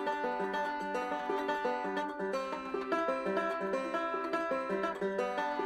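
Background music: a quick, busy tune on a plucked string instrument, in a banjo-style bluegrass vein.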